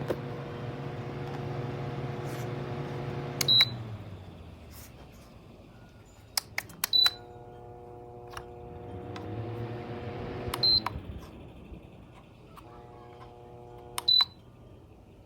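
Shinic twin-blade window fan running with a motor hum and air rush, its control beeping four times, each short high beep preceded by a click, as its setting is changed. The air rush drops away after the first beep and swells again with a rising whir before the third.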